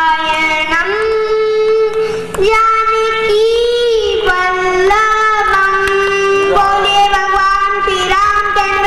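A child's voice singing a Hindu devotional bhajan in long, held notes with small bends in pitch.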